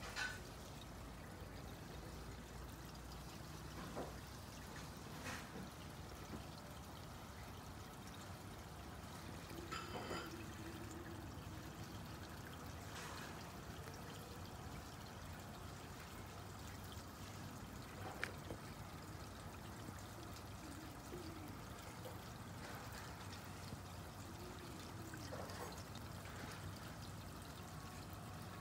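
Small garden pond fountain splashing and trickling steadily into the water.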